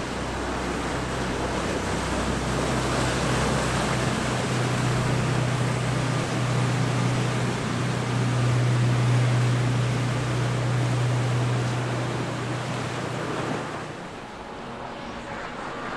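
Engines of large flybridge sportfishing boats running fast through the inlet: a deep steady drone that swells to its loudest about nine seconds in and drops away shortly before the end, over the rushing hiss of wake, surf and wind.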